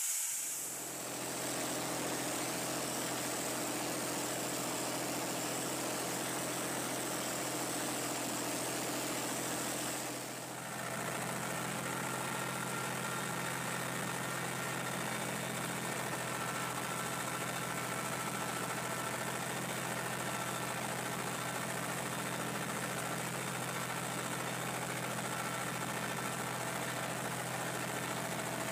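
Deutz tractor's air-cooled diesel engine running steadily, with a brief dip in level about ten seconds in.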